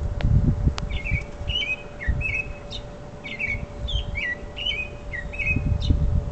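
A songbird singing a run of short, quick chirping phrases, about eight of them, starting about a second in. Low rumbling on the phone's microphone at the start and again near the end is louder than the song.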